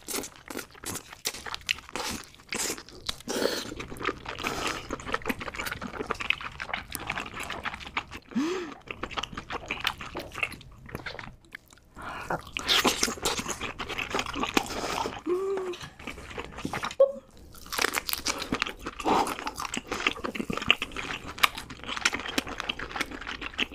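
Close-miked mukbang eating sounds: a person chewing and biting spicy-sauced seafood, wet smacking with many quick clicks and crunches.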